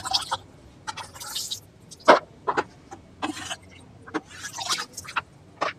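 Water splashing and dripping as a perforated metal skimmer scoops soaked peanuts out of a plastic bucket of water, with a run of light clicks and knocks of the skimmer and nuts against the plastic; one sharper knock about two seconds in.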